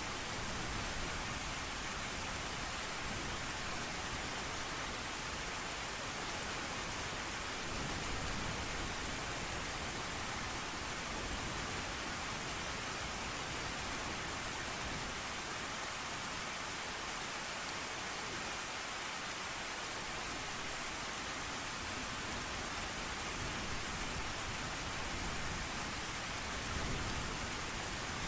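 Steady heavy rain, an even hiss. A low rumble of distant thunder comes and goes underneath.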